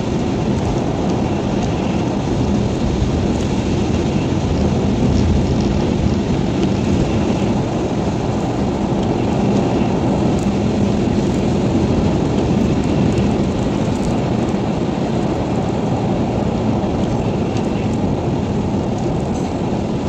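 Steady road and tyre noise of a car driving on a wet highway, heard from inside the cabin, with rain on the windscreen.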